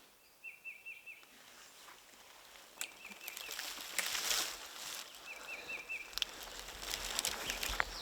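A songbird singing a short phrase of four or five quick repeated high notes, three times a couple of seconds apart, over woodland ambience with faint rustling and clicks.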